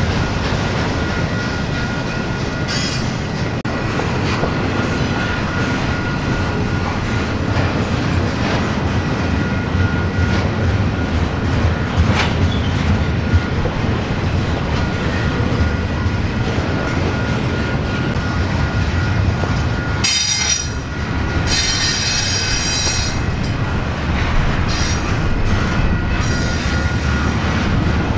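A freight train's autorack and double-stack container cars roll past on the rails with a steady rumble and clatter of wheels. High-pitched wheel squeal rises briefly about three seconds in and again for a few seconds about two-thirds of the way through.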